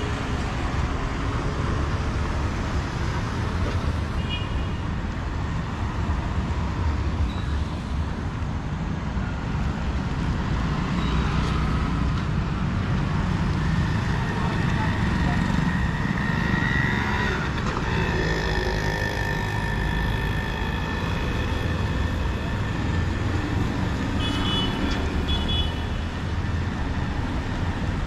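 City street traffic: motor scooters, auto-rickshaws and cars running past in a steady low rumble, with vehicle horns sounding a few times in the second half.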